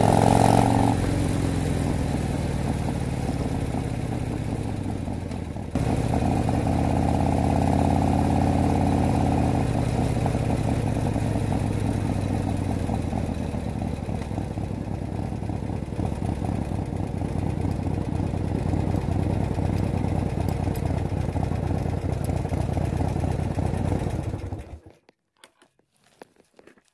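Harley-Davidson V-twin motorcycle engine running under way, muffled as if heard from inside a backpack, with a jump in level about six seconds in. The engine sound stops abruptly near the end.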